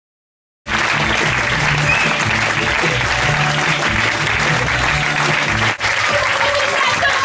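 Silence, then under a second in a theatre audience bursts into sustained applause, with loud music playing underneath; the sound dips briefly about six seconds in.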